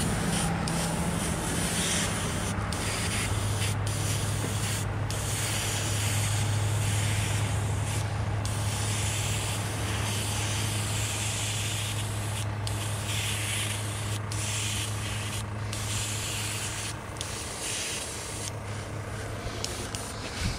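Airbrush spraying, its air hiss stopping and starting as the trigger is worked, over a steady low hum.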